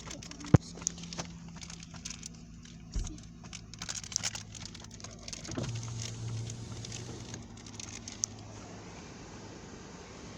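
Scattered sharp taps and clicks over a steady low hum; the hum shifts to a lower pitch about halfway through, and the taps stop near the end.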